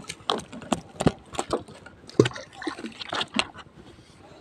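Irregular clicks, taps and rustling of close handling noise as a hand works a fishing handline next to the microphone.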